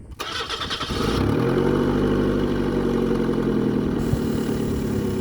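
1995 Mazda Protege's 1.5-litre four-cylinder engine cranked by the starter for about a second, then catching and settling into a steady idle. It runs smoothly, without misfire, after a cracked distributor cap adapter that let spark jump between cylinders was replaced.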